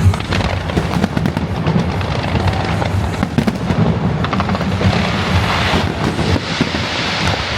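Fireworks going off in a dense, continuous barrage: rapid overlapping bangs and crackles over a steady low rumble.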